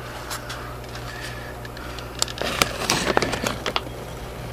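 Scattered clicks, small knocks and rustles from hands and the camera being moved around the engine, mostly in the second half, over a steady low hum.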